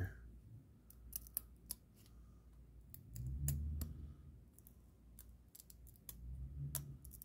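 Thin cardboard trading cards that are stuck together being prised apart and flexed by hand, giving a scattering of small, sharp clicks and snaps as they separate. Two low, muffled handling sounds come about three seconds in and again near the end.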